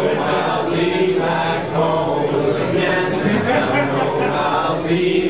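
Live band playing electric guitars, with several voices singing or chanting together over them.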